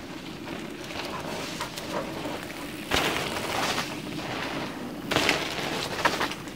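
Mountain bike tyres rolling and skidding on a loose dirt trail as riders come down it, with a thud about three seconds in and a loud crunching skid a little after five seconds.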